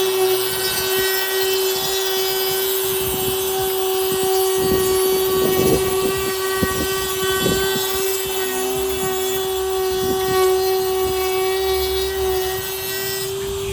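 A handheld power tool runs at a steady high-pitched whine while it cuts and grinds into a carbon-fibre hood to lengthen the latch cutout, with uneven scraping and knocking as the bit bites. It cuts off near the end.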